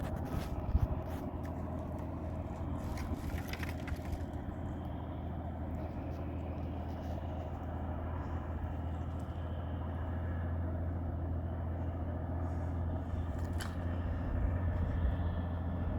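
An engine running steadily with a low, even drone, with a few short clicks over it in the first few seconds and once near the end.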